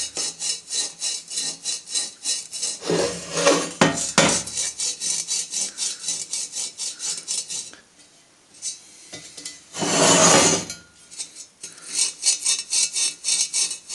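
Abrasive Scotch-Brite pad scrubbed quickly back and forth on the aluminium clutch release bearing guide spigot, about four to five strokes a second, to clean off grime. The strokes stop for a few seconds near the middle, with a short louder rush of noise about ten seconds in, then start again.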